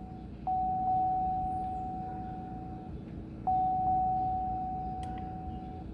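Two long electronic chime tones, each starting sharply and fading away over about two and a half seconds, about three seconds apart, over a steady low hum.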